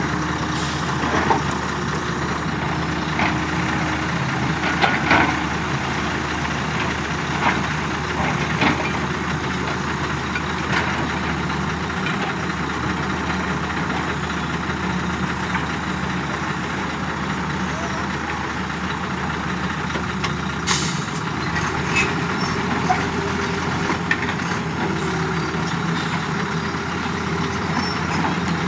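Diesel engines of heavy construction machinery running steadily, with scattered knocks and clatter every few seconds.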